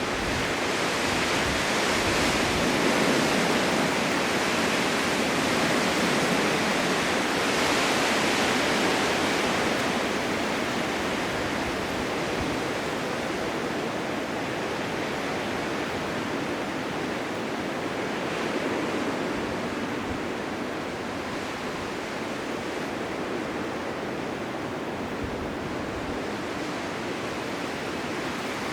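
Blizzard wind, a steady rushing noise without any distinct events, somewhat louder over the first ten seconds and then easing off slightly.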